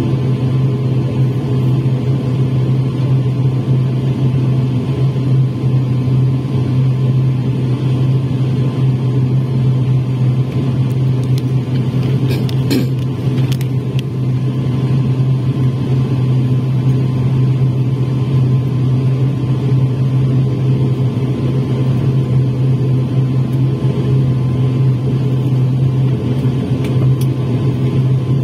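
ATR 72 turboprop's engine and propeller heard from inside the cabin while taxiing: a loud, steady low drone with engine hum above it. A few faint clicks come about halfway through.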